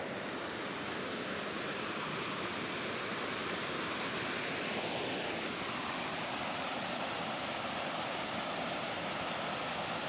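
Small mountain waterfall pouring down over rock slabs, a steady rush of falling water.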